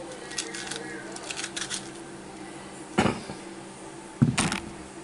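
Seeds and stringy pulp being scraped out of a halved spaghetti squash and dropped onto a plate: a run of small soft clicks, then two loud knocks a little over a second apart near the end.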